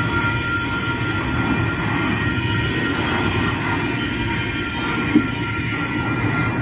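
Double-stack container freight train rolling past at a grade crossing: a continuous rumble of wheels and well cars, with steady high-pitched tones ringing over it. There is one sharp knock about five seconds in.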